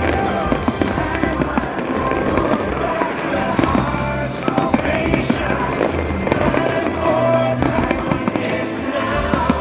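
A fireworks display: many bangs in quick succession, with music playing along.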